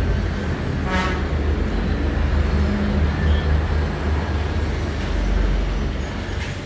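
Steady low rumble, with a brief tone about a second in.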